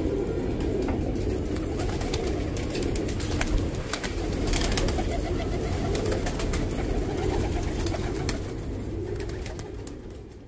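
A flock of domestic pigeons cooing steadily together in a loft, with scattered sharp clicks and taps over the cooing, fading out near the end.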